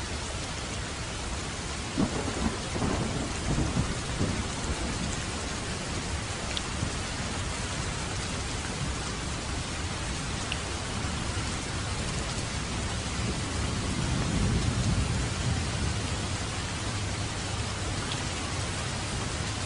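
Heavy rain falling steadily. Thunder cracks suddenly about two seconds in and rumbles for a couple of seconds, and a second low roll of thunder swells up about two-thirds of the way through.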